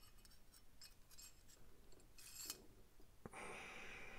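Faint metal ticks and clicks from handling the Reate Exo gravity knife's parts, the blade sliding in the handle frame, with a short scrape, a sharp click just past three seconds and a rubbing scrape near the end.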